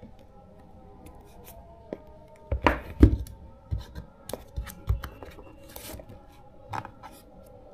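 Hands handling a smartphone's retail box and packaging: a run of clicks and knocks, loudest about three seconds in, with a few more near the end.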